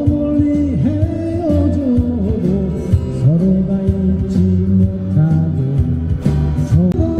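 Live busking: a voice singing a slow melody with held, gliding notes over acoustic guitar, amplified through a PA speaker.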